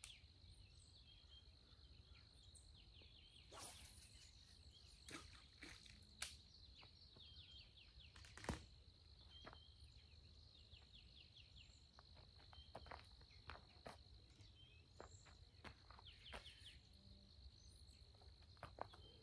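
Near silence: faint outdoor ambience with a steady high-pitched insect drone, scattered faint bird chirps and a few soft clicks.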